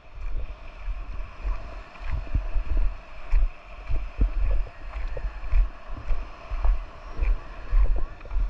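Wind buffeting the microphone, with regular low thumps of footsteps over dry coral rubble, and surf washing on the reef in the background.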